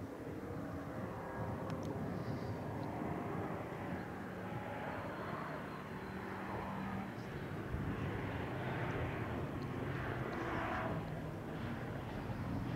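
Muscle car engine running at a distance, its pitch shifting as it is driven, getting louder near the end as the car comes closer.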